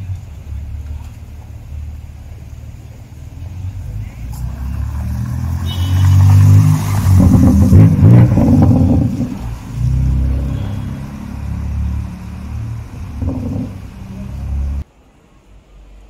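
BMW 4 Series coupe's engine revving hard as it pulls away, loudest from about six to nine seconds in, then running on through further rises and drops in revs. The engine sound cuts off suddenly shortly before the end.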